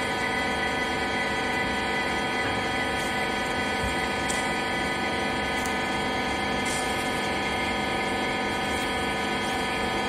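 Twin-ram rag baler's hydraulic power unit running steadily: a constant hum of several steady tones, with a few faint clicks in the middle.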